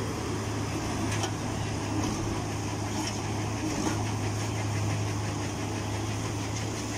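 Shinrai backhoe loader's diesel engine idling steadily with a low, even hum.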